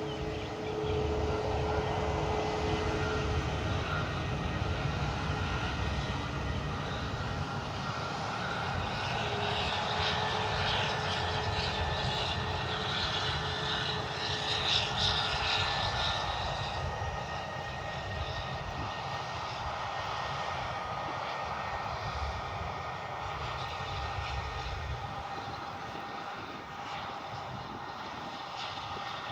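Fixed-wing aircraft engines running steadily, growing louder toward the middle and then easing off a little.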